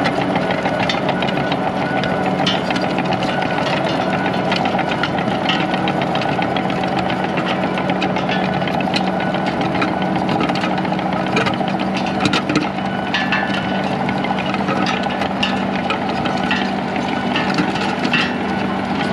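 Compact track loader's diesel engine running steadily as it pulls a landscape rake through loose soil, with scattered clicks and rattles throughout.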